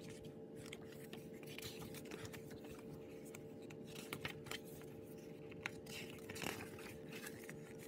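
Faint rustles and soft clicks of a photobook's glossy pages being turned by hand, over a steady hum.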